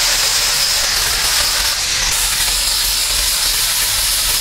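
Handheld angle grinder running steadily with a high whine, its disc grinding the dusty face of clay cladding bricks.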